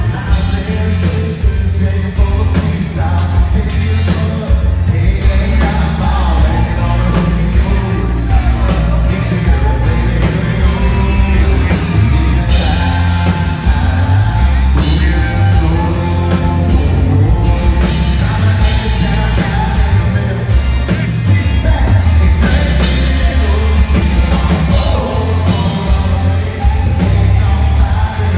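Live country band playing loudly, with a man singing lead over heavy bass and drums.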